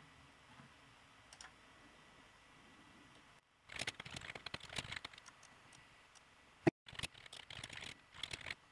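Typing on a computer keyboard: rapid key clicks that begin about three and a half seconds in, pause briefly, then go on, with one sharp louder click just before the pause ends.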